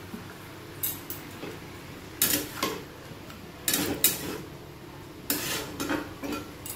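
Steel spatula scraping and clinking against a metal kadai while diced bottle gourd and potato are stirred, in a few separate strokes.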